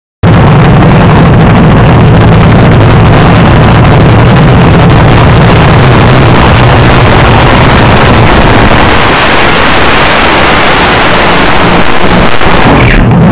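Supercharged nitro-burning fuel altered drag car engine running hard at close range during a burnout, a continuous roar loud enough to overload the recording.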